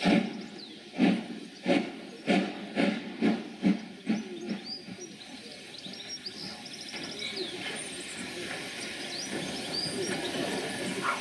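WD Austerity 2-10-0 steam locomotive 90775 working under steam: a run of about eight loud exhaust beats in the first four and a half seconds, coming closer together, then a steady hiss as the beats die away.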